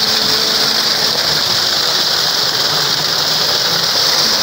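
Small waterfall: stream water pouring and splashing over rocks close by, a steady loud rush.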